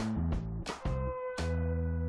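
Background music: low held bass notes and a sustained guitar-like note, punctuated by sharp percussive hits several times a second.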